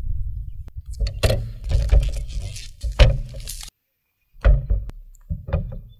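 Handling noise of a smartphone box being slit open and its lid lifted: scraping and rustling with several sharp knocks as the box bumps on a wooden table, over a low rumble.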